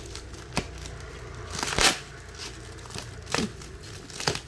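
Cardboard box and packaging for a welding machine being opened by hand: rustling and crinkling, with scattered sharp clicks and a louder tearing rustle about a second and a half in.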